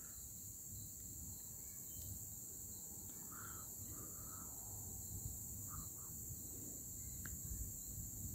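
Night insect chorus, crickets shrilling high and steadily, over a low, uneven rumble. A few short faint chirps sound in the middle.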